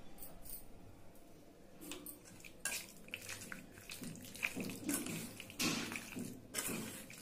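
Steel spoon mixing boneless chicken in a thick, wet marinade in a stainless steel bowl: irregular scraping and clinking against the bowl with wet, sloppy sounds, starting about two seconds in and getting louder.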